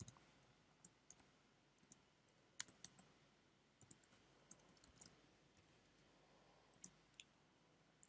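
Faint computer keyboard typing: irregular key clicks as an expression is typed into a text field.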